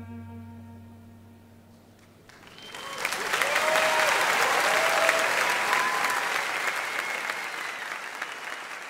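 The last held cello note of a string arrangement dies away. About two and a half seconds in, a concert audience breaks into applause, with some whistling over it. The applause swells quickly and then slowly tapers.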